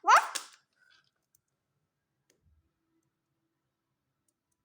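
One short yelp rising in pitch right at the start, then near silence.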